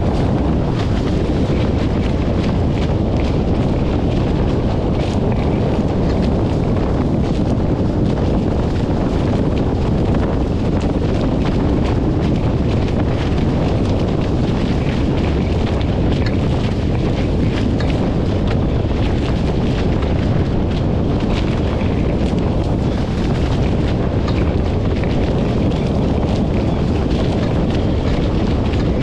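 Wind buffeting the microphone in a steady, loud low rumble, with water rushing and splashing faintly underneath.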